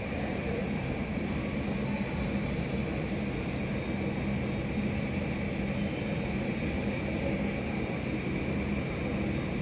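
Steady airport drone, heard from inside the terminal: a low hum with a faint high whine running under it, unchanging throughout.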